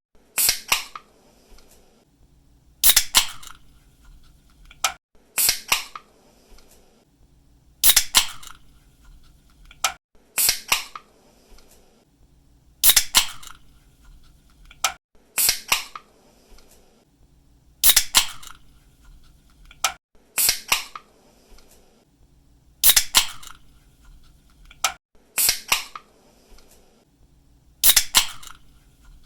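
Aluminium drink can opened by its pull-tab again and again, about every two and a half seconds: a sharp crack as the tab breaks the seal, then a short fizzing hiss of escaping gas.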